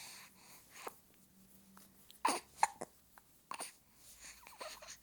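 A seven-week-old baby girl hiccupping: a few short, sharp hiccups about a second apart, with soft little baby vocal sounds near the end.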